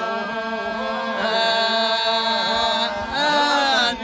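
Greek Epirote polyphonic singing by a small unaccompanied group of voices: a steady held drone (the iso) sounds beneath an ornamented, wavering melody line. The voices swell louder about a second in and again near the end.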